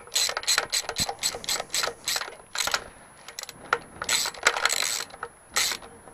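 Hand socket ratchet clicking in repeated short swings as a bolt, first started by hand, is run down.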